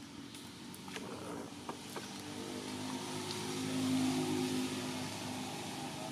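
A motor vehicle's engine running at a steady pitch, growing louder to a peak about two-thirds of the way through and then fading as it passes by, with a few faint clicks early on.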